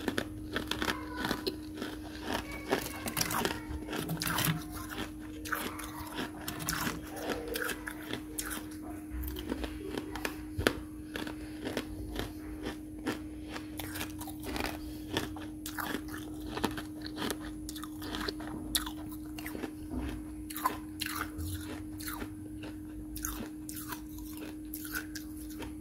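Mouthfuls of freezer frost being bitten and chewed: a long run of crisp, irregular crunches over a steady low hum.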